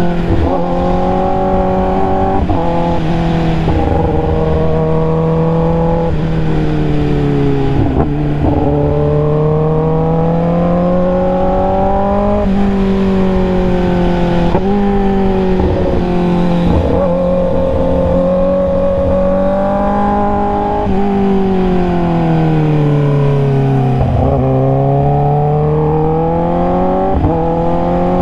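Kawasaki ZX-10R inline-four engine heard on board while riding. Its note rises under throttle, then breaks and drops at each gear change, and sags and climbs again as the throttle comes off and back on.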